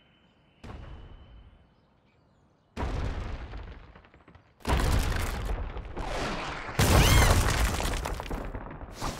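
Cartoon rumbling in three waves, each louder than the last, starting about a second, three seconds and five seconds in, building to a loud crash of breaking stone and rubble near the end, as the ground shakes and a wall is smashed open.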